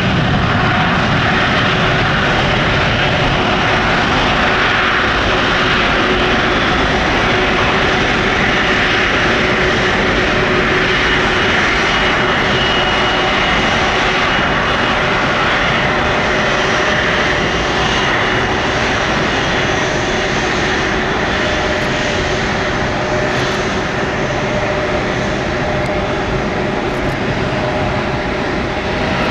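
Airbus A330's twin turbofan jet engines running steadily at low taxi power: a constant jet rumble with several steady whining fan tones over it.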